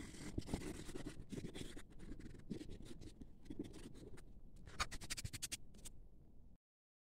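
Faint, irregular scratching of a hand drawing on paper, with a cluster of sharp clicks and taps about five seconds in. The sound cuts off shortly before the end.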